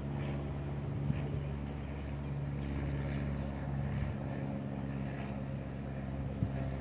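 A steady low engine or motor hum running evenly, with a few faint higher sounds and soft knocks over it.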